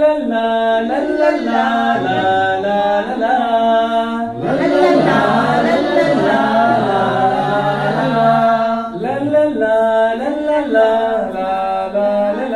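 A group of voices singing a Kannada song unaccompanied, with long held notes.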